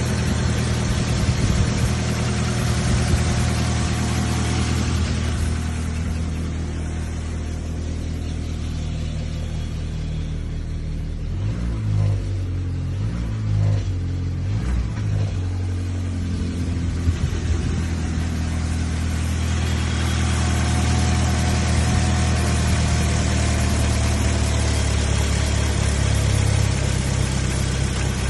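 Volkswagen Golf V 1.6 FSI four-cylinder petrol engine running with a misfire, its engine note shifting twice near the middle.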